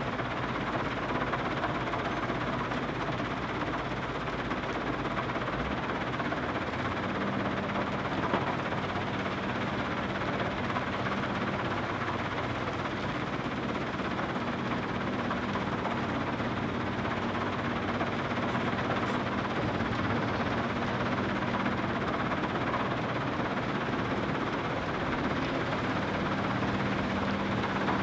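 Diesel engine of a New Holland Kobelco E305C excavator working through a dig-and-load cycle, its note shifting as the load changes, over the steady running of a Terex Finlay 883+ mobile screening plant.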